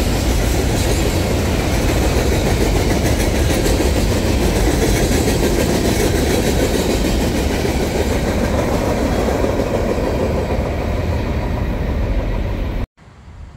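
Freight train of trash container cars rolling past, a steady noise of steel wheels on rail. The sound cuts off suddenly near the end.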